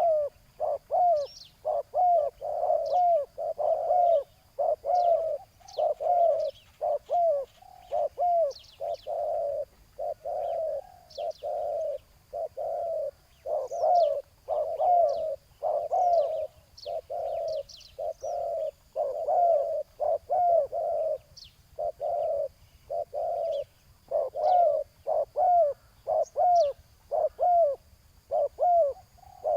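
Spotted doves cooing: one short, low coo after another, one or two a second with only brief pauses, over faint high chirps of small birds.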